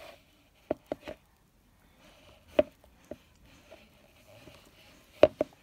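Wet, foam-covered fingers squeezing and picking at a slime-filled rubber balloon, making short sharp clicks and squelches in small clusters. The loudest pair comes near the end.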